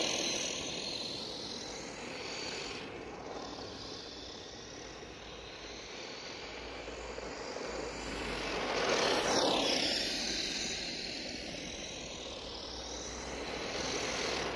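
Electric motor and gear whine of a Tamiya GF-01 Heavy Dump Truck RC model, with tyre noise on tarmac, as it drives past a low camera. It is loudest about nine seconds in, where the whine drops in pitch as the truck passes, and it builds up again near the end.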